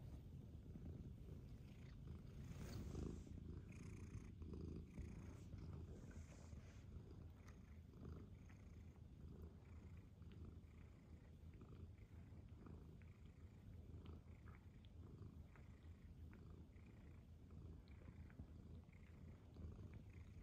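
Domestic cat purring close up: a faint, steady low rumble, with a brief louder rustle about three seconds in.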